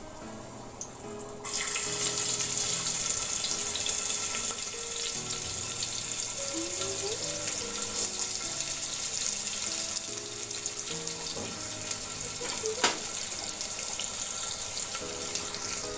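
Sliced onions dropped into hot oil in a pressure cooker, setting off a sudden, steady sizzle about a second and a half in as they start to fry.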